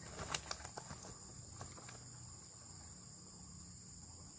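Insects droning steadily at a high pitch, with a quick run of sharp clicks and knocks in the first second.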